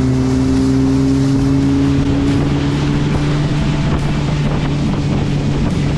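Motorboat engine running steadily under way, a low drone with its pitch sinking slightly, over wind and water noise.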